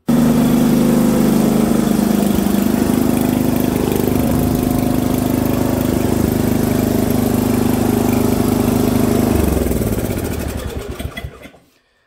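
Briggs & Stratton 1150 single-cylinder overhead-valve snowblower engine running steadily, back in running order on a replacement used cylinder head after a broken valve spring let a valve drop. About two-thirds of the way through it is shut off and winds down to a stop.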